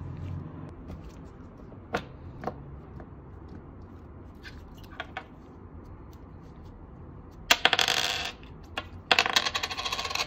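A metal coin clattering and rattling on a hard tabletop, twice near the end, the second time a little longer, after a few faint clicks of handling.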